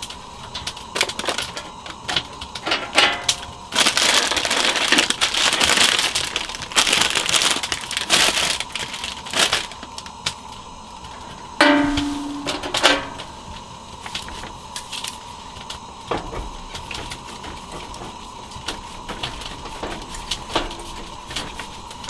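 Scattered sharp clicks and crackles, typical of a wood fire in a clay fireplace, with louder knocks, clatter and rustling of things being handled, including a stretch of rustling about four seconds in and a brief pitched squeak or scrape near the middle.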